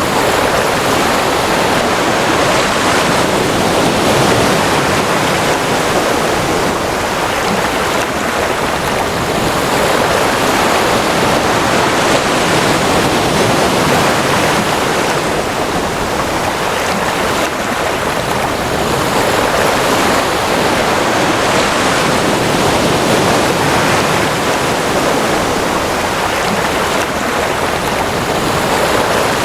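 Ocean waves washing: a steady rush of water that swells slightly every few seconds.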